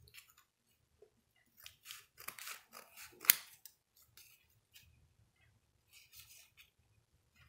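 Scissors snipping through a folded stack of soft crepe paper, cutting it into thin strips. A run of cuts comes in the middle, with the sharpest snip about three seconds in, and a few more follow near the end.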